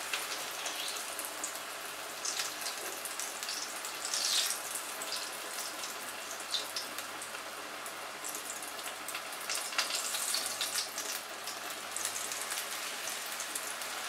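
Besan-battered bread slices deep-frying in hot oil in a kadai: a steady sizzle full of fine crackles, swelling louder now and then.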